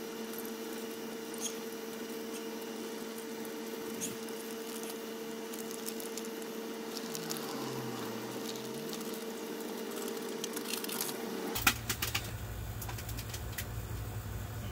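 Light clicks and rustles of small valve-train parts and a plastic parts bag being handled over an open cylinder head, over a faint steady hum. Near the end a quick run of sharper clicks stands out.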